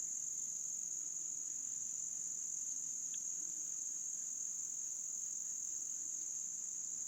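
Chorus of singing insects, crickets or the like, making one steady, unbroken high-pitched drone.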